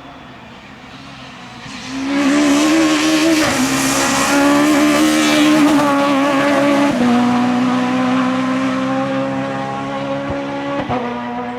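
Peugeot 306 Maxi Kit-Car's rally engine arriving loud about two seconds in at high revs, its pitch dropping in abrupt steps three times, with a hiss of tyres in the first few seconds; it then slowly fades as the car moves away.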